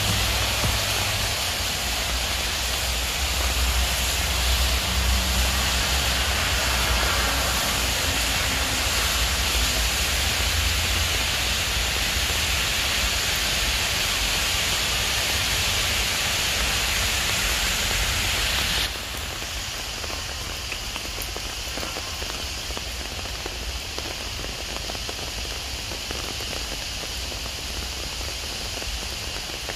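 Steady rain falling on trees and the ground, a dense even hiss that steps down to a slightly quieter level about two-thirds of the way through.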